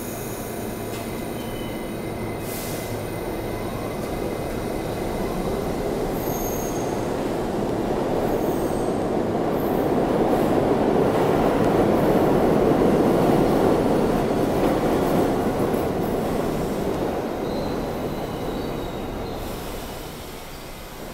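New York City subway train running into an underground station. A rumble of wheels on rail swells to its loudest a little past halfway and eases off as the train slows along the platform, with brief thin squeals from the wheels here and there.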